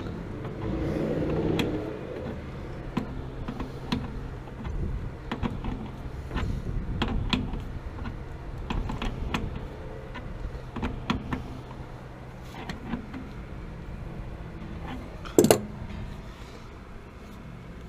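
Hand tools clinking and knocking on metal fittings while a gas line is connected to a water heater, with one loud sharp bang about fifteen seconds in, over a steady low hum.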